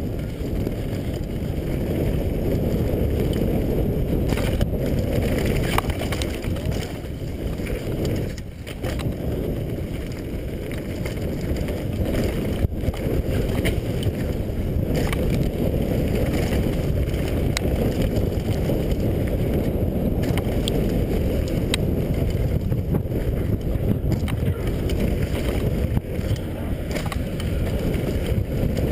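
Wind rushing over the microphone and tyres rumbling on a hard-packed dirt trail as a downhill mountain bike rides at speed, with scattered clicks and knocks from the bike rattling over the bumps. The rush dips briefly about eight and a half seconds in.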